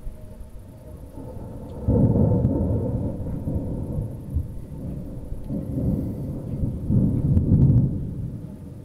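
Rolling thunder: a low rumble that breaks in suddenly about two seconds in, swells again a few seconds later and fades near the end.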